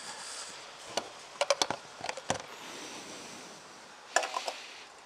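A scattering of light clicks and knocks, a few of them in quick clusters, from handling the fuel filler cap and fittings under the lifted seat of a Honda C90, with the engine switched off.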